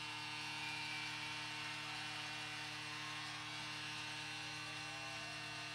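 Steady electrical mains hum in the audio feed, a few unchanging low tones over a faint even hiss.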